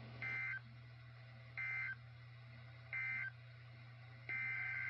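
NOAA Weather Radio SAME alert data tones: three short, shrill two-pitch bursts about a second and a half apart, then a longer burst starting near the end, over a steady low hum. They mark the start of the weekly test being broadcast again.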